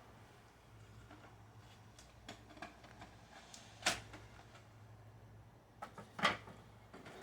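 Faint handling noises from unpacking a beehive kit from its box: scattered light clicks and knocks, with two sharper knocks about four and six seconds in.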